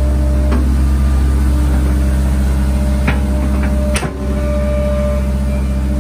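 Hitachi excavator's diesel engine running steadily under working load, with a steady thin whine over the drone and a few knocks of the bucket working soil in the ditch, the loudest about four seconds in.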